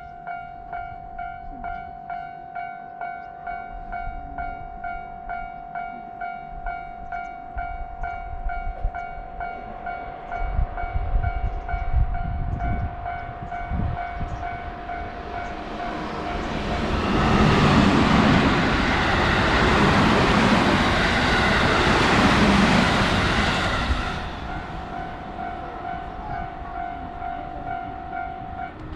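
Japanese railway level-crossing alarm ringing its steady, evenly repeated 'kan-kan' ding. A little past halfway, a JR Sanyo Main Line train passes through the crossing with a loud rush of wheels and motors for about seven seconds. After the train has gone the alarm keeps ringing, then stops shortly before the end.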